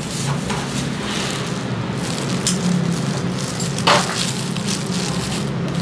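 Clear plastic gloves crinkling and rustling as hands work wet hair, with many small crackles and one sharper crackle about four seconds in, over a steady low hum.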